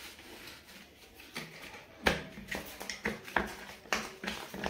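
Hard plastic panels of a flat-pack drawer storage unit clacking and knocking together as they are handled, an irregular run of sharp clicks starting about halfway through.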